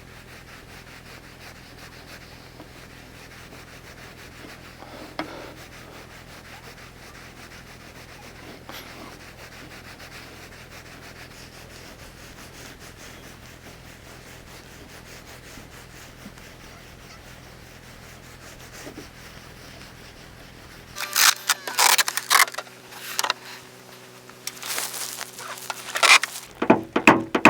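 Faint rubbing and scraping over a steady low hum, from paintless dent repair tools working the metal of a car's quarter panel. About three quarters of the way in it changes abruptly to a few seconds of much louder, irregular sounds.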